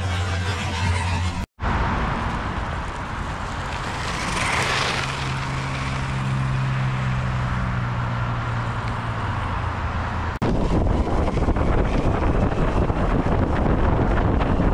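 Electric off-road longboard riding: a low motor hum with wheel and road noise under it. The sound breaks off abruptly twice, and near the end gives way to a louder rushing of wind on the microphone.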